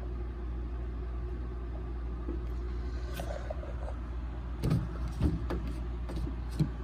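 Steady low hum, with a few light clicks and knocks in the second half as the rechargeable work lights are handled on their charging dock.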